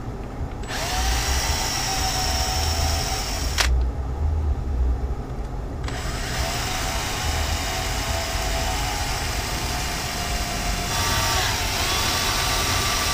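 Cordless drill drilling a small hole through a boat's fiberglass pilot house roof, its motor whining in two runs: a short one of about three seconds, then after a brief pause a longer one that steps up in pitch near the end.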